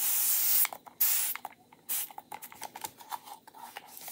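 Hand-pumped trigger spray bottle misting tap water: two short hissing sprays, one at the start and one about a second in, each under a second long, followed by a few light clicks and taps.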